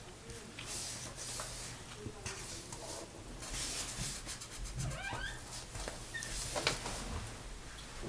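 Felt-tip markers scratching and squeaking on paper in short strokes as small shapes are drawn and coloured in, with a few brief high squeaks about halfway through.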